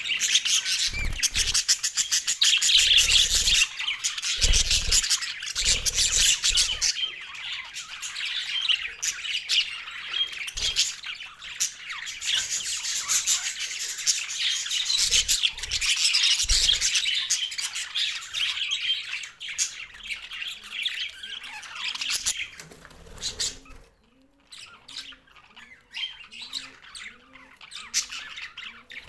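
Budgerigars chattering, a dense, continuous run of chirps and warbles, with several low thumps in the first half. About 24 seconds in the chatter drops away to sparser, quieter calls.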